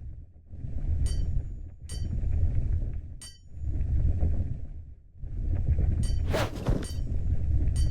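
Blacksmithing: light ringing metal-on-metal clinks of steel tools or hammer taps, with louder strikes near the end, over a low rumbling noise that swells and fades every second or two.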